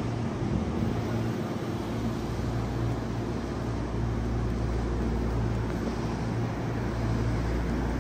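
Electric commuter train running, a steady low rumble with a constant hum.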